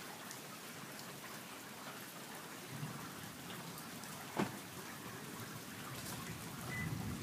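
Steady rain falling, with scattered drips and one sharp tap about four seconds in.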